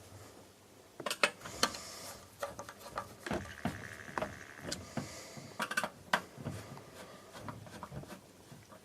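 Screwdriver tightening the hard drive's mounting screws in a recorder chassis: scattered small metal clicks and knocks at an irregular pace, with a short squeak about three seconds in.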